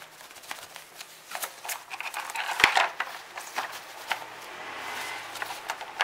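Thin protective wrapper rustling and crinkling as it is pulled off a mechanical keyboard, with a sharp knock about two and a half seconds in.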